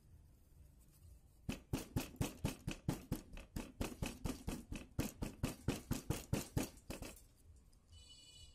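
Hammer tapping a Sony camera's metal front case frame wrapped in a folded towel: a quick, even run of about four muffled blows a second, starting about one and a half seconds in and stopping about a second before the end.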